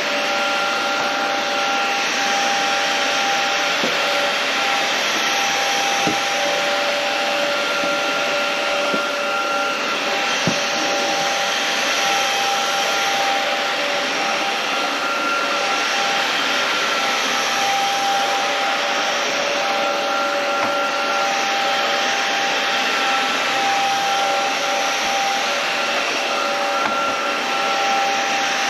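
Inse S610 cordless stick vacuum running steadily while being passed over a rug: an even rush of suction air with a steady motor whine, and a couple of faint clicks.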